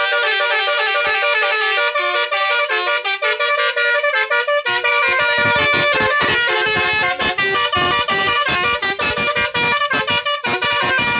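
Basuri musical bus horn (telolet) playing a quick melody of short notes that step up and down in pitch. About halfway through, a low, quick thudding joins in under the tune.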